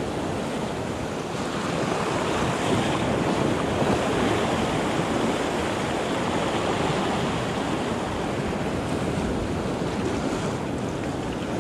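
Shore surf washing in steady foamy waves close around, with wind buffeting the microphone.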